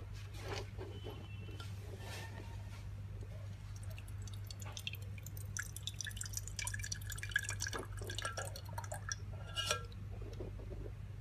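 Water dripping and splashing in quick, irregular drops, busiest in the second half, over a steady low hum.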